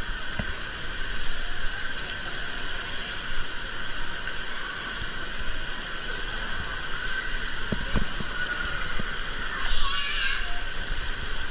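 Echoing indoor water-park din: a steady rush of pool water and play features under distant children's voices, with a short louder burst near the end.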